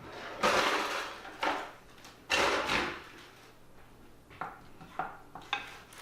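A utensil scraping and clanking against metal cookware as canned chili is emptied into a pot: three longer scrapes in the first three seconds, then a few light clinks.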